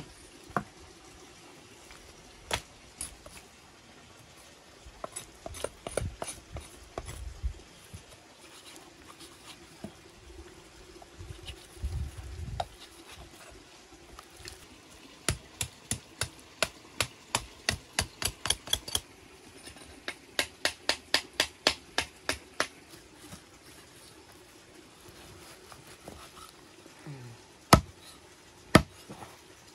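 Large butcher's knife cutting and chopping meat from a cow's head jawbone on a wooden stump block: scattered knocks and dull thuds, then two fast, even runs of chopping strokes, about four a second, in the middle, and a couple of single hard chops near the end.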